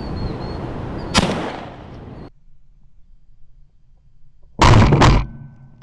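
Shotgun fire at a flock of starlings: a sharp report about a second in, then two loud blasts in quick succession near the end.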